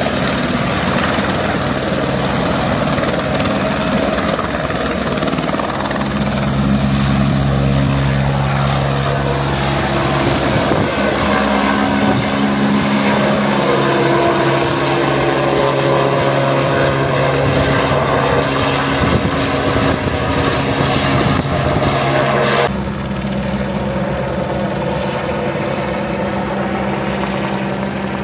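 Helicopter in flight, its engine and rotor running steadily with a thin high whine above. About twenty-three seconds in, the sound changes abruptly: the highest hiss and whine cut off and it becomes a little quieter.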